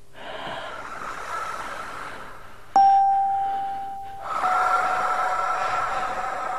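A bell-like chime struck once about three seconds in, ringing on with a single steady tone that fades slowly. It sits over a soft airy hiss that swells, fades and swells again, as in an ambient music soundtrack.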